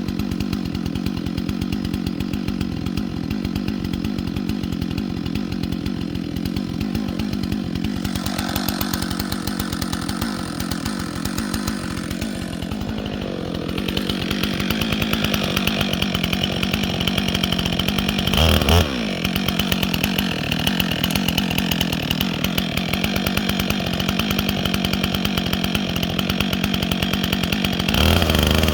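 Chainsaw running steadily under load, cutting wood. Its note shifts about halfway through, and it briefly changes twice in the second half.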